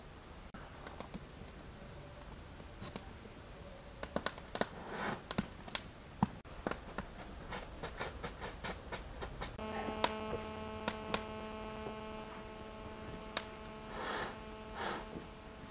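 Wood fire crackling and popping with sharp snaps under an iron bread griddle. About two-thirds of the way in, a steady low hum starts abruptly and holds. Near the end come a few short swishes of bread being handled on the griddle.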